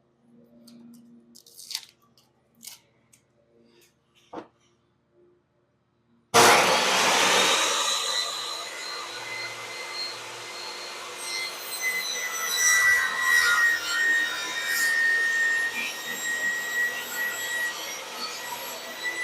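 A few light clicks and knocks of boards being handled, then about six seconds in a table saw switches on and spins up. It runs steadily with a high whine while a cedar picket is ripped lengthwise into 2-inch strips.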